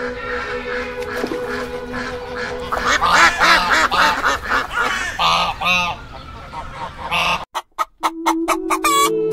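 A flock of mallard ducks quacking, with a dense run of loud quacks from about three seconds in. Near the end it cuts to helmeted guineafowl giving a rapid series of sharp calls.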